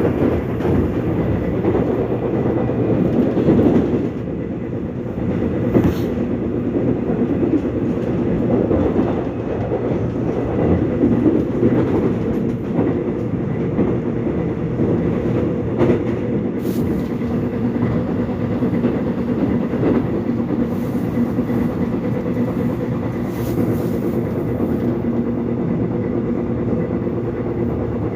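Korean subway train running at speed: a steady rumble with a droning hum, and now and then a sharp click as the wheels pass over rail joints.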